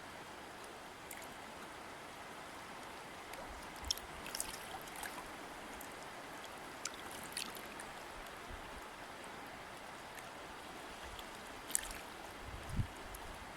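A river or stream flowing steadily over stones, with occasional small splashes and drips standing out, the sharpest a few seconds in and again near the end, and a low thump just before the end.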